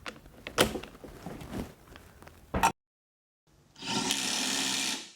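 A few knocks and clicks, then a sudden dead silence. After that, a Bosch GDS 18 V-LI Professional cordless impact wrench runs steadily for about a second and a half near the end and stops sharply.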